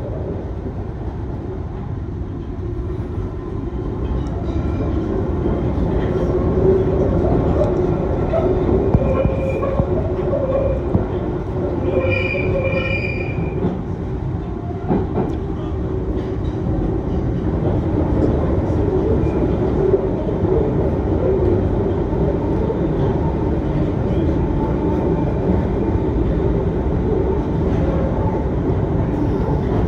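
Piccadilly line tube train running through a tunnel: a steady loud rumble with wheel and track noise, and a brief high-pitched squeal from the wheels on a curve about twelve seconds in.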